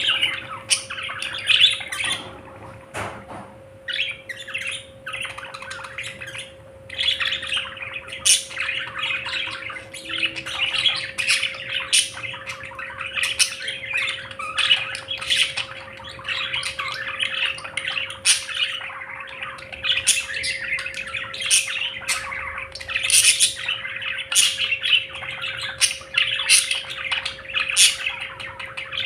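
A flock of budgerigars chattering and warbling without a break, with many sharp high chirps and squawks.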